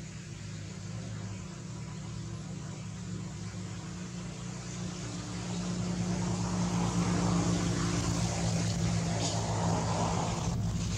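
An engine running steadily with a low hum, getting louder about halfway through.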